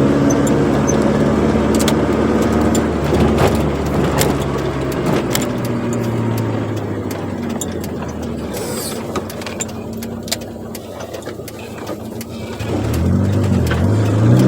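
Chevrolet Corsa engine with a sport exhaust running while driving. It holds a steady note at first, eases off and quiets through the middle, then picks up and climbs in pitch again near the end, with scattered light clicks.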